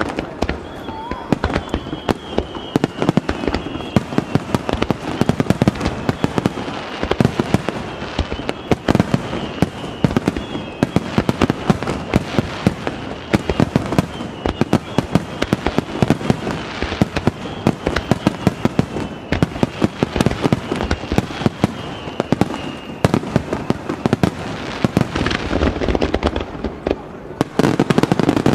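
Aerial fireworks shells bursting in quick succession, many sharp bangs and crackles overlapping with long echoing rumbles off the mountains around the lake basin. The barrage grows heavier and deeper near the end.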